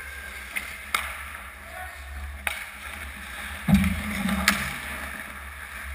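Ice hockey play at the net: sharp clacks of sticks and puck, four of them, over the hum of the rink. About two-thirds of the way through, a loud low rush of skates scraping ice as a player skates right past the net, the loudest sound here.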